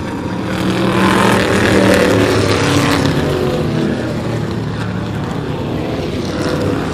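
A pack of short-track stock cars racing past, their engines running together in a dense drone that swells louder about one to three seconds in as the cars come closest, then settles.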